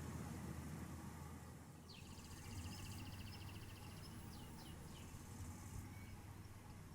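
A small bird's rapid trill of fast repeated notes, starting about two seconds in and lasting a few seconds, ending in a few quick falling notes, over a steady low outdoor rumble.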